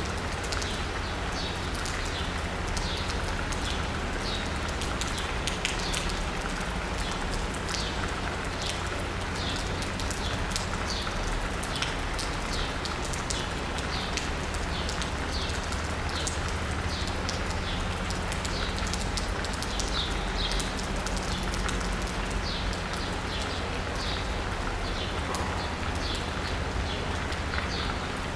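Steady rain falling on asphalt and rooftops, with many close drops ticking sharply throughout over an even hiss and a steady low rumble.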